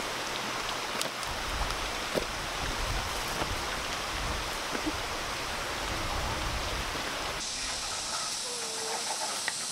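Steady rushing outdoor noise with a few faint clicks. About seven seconds in it changes abruptly to a thinner, high steady hiss.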